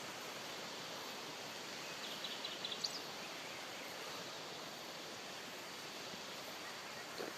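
Steady rushing noise of flowing water. A small bird gives a short run of high chirps about two to three seconds in.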